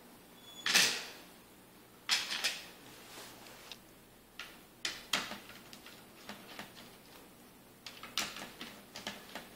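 Irregular short scrapes, taps and clicks of a small screwdriver and small parts being handled inside an opened laptop chassis as screws are taken out and a little circuit board is set aside.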